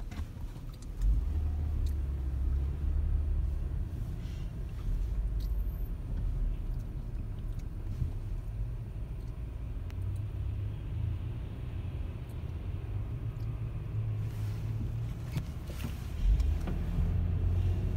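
Low rumble of a car heard from inside the cabin as it drives in slow city traffic, swelling about a second in and again near the end.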